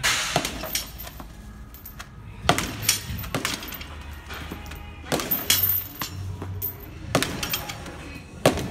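Softballs hit hard off a batting tee: a sharp crack of bat on ball every two to three seconds, several followed by a lighter knock as the ball hits the cage netting.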